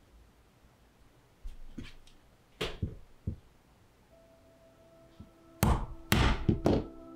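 Irregular knocks and thumps of tools striking a workbench: a few lighter strikes, then a louder cluster of about four near the end. Soft background music with held tones comes in about four seconds in.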